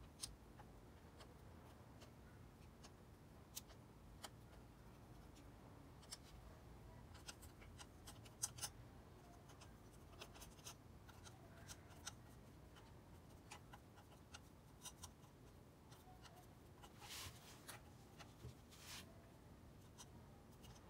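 Faint, scattered clicks and scrapes of a soldering iron tip and solder wire working against a stainless-steel motorcycle muffler while a hole is soldered shut, with two short hissing sounds near the end.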